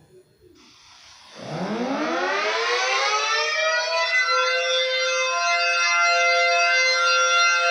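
Civil defense siren starting up about a second and a half in, its pitch rising over a couple of seconds and then holding a steady wail.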